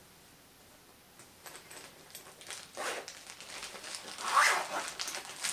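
Zipper of a glossy makeup bag being pulled open in a few short strokes, the longest about four seconds in.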